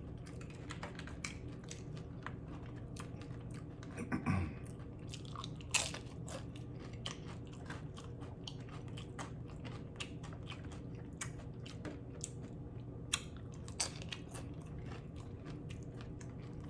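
Close-miked chewing and crunching of loaded steak nachos, the tortilla chips cracking in many quick, irregular crunches.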